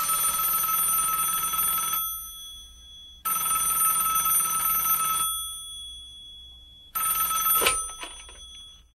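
A telephone ringing three times, each ring a steady high tone about two seconds long with a pause between. The third ring is cut short by a click a second in.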